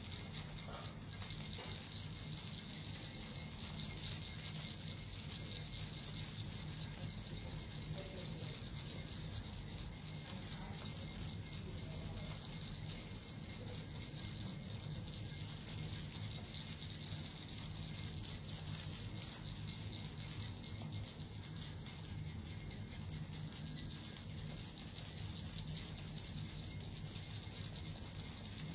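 Small jingle bells (suzu) shaken continuously, making a steady, unbroken shimmering jingle.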